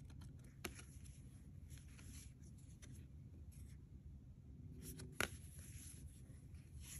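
Faint handling of tarot cards, the card stock rustling as cards are lifted, shown and slid back onto the pile. A light click comes about half a second in and a sharper card tap about five seconds in, over low room tone.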